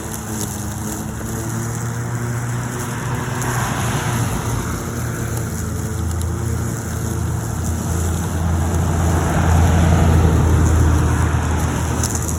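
Corded Greenworks electric lawnmower running steadily, its motor hum and spinning blade cutting tall grass. It gets louder for a couple of seconds about nine seconds in.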